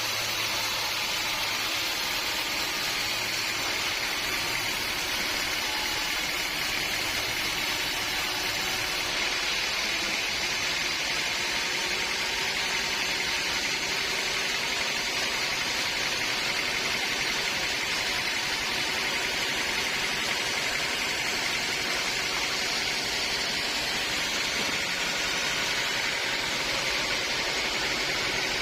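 Sawmill machinery running steadily, a constant mechanical hiss with a low hum underneath.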